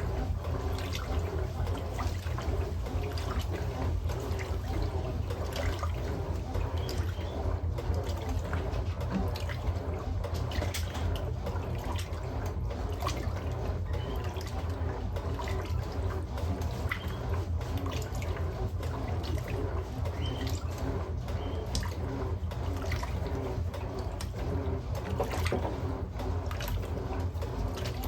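Electrolux LM08A top-loading washing machine running its wash with a load of towels: water churns and sloshes in the tub over a steady low motor hum.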